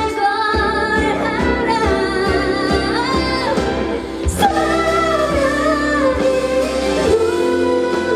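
A woman singing a slow pop ballad live into a handheld microphone over band accompaniment, holding long notes with vibrato, heard through the concert sound system. A sharp hit cuts across the music about halfway through.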